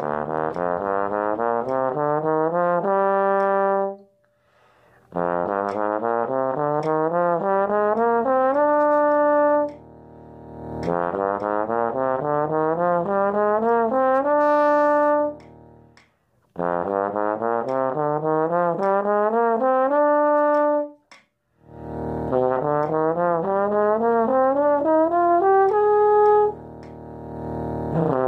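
Bass trombone playing quick slurred scale groups of five notes in E-flat major as a range-building exercise. Each phrase is a fast up-and-down run that climbs and ends on a held note. The phrases are separated by brief pauses of about a second, and a new one starts near the end.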